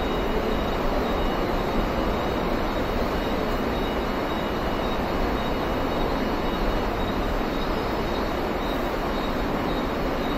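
Steady running noise of a train in motion, an even rumble and hiss with no distinct clacks or other events.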